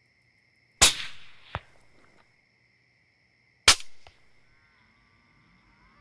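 Two rifle shots about three seconds apart, each a sharp crack with a short fading tail. A fainter second crack follows the first shot under a second later.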